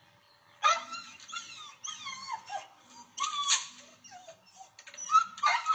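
A dog whining and yelping in a run of short, high cries that slide down in pitch, starting about half a second in, with the loudest cries at the start and near the end.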